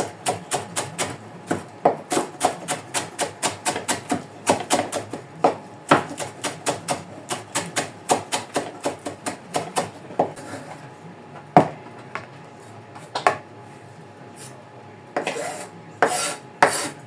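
Knife chopping fresh basil and coriander on a cutting board: fast, even strokes about four or five a second, thinning out after about ten seconds, with a few longer scrapes near the end.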